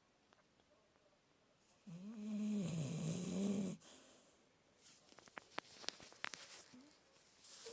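Snoring: one long pitched snore of about two seconds, wavering slightly in pitch with a breathy hiss over it, comes about two seconds in. It is followed by a scatter of faint short clicks.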